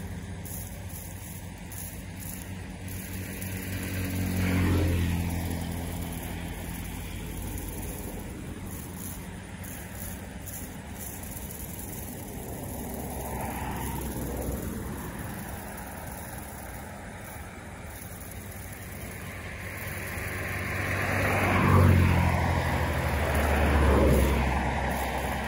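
Road vehicles passing one after another, each swelling up and fading away with a rise and fall in pitch as it goes by: four passes, about 4, 14, 22 and 24 seconds in, the one about 22 seconds in the loudest.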